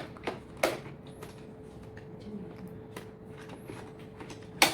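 Sharp plastic clicks of the mop and water-tank module being fitted onto a Xiaomi Mijia 1C robot vacuum: two in the first second and a louder one near the end, over a faint steady hum.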